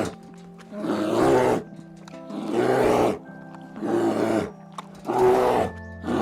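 An animal calling over and over, one call about every second and a half, each call lasting about a second, over soft background music.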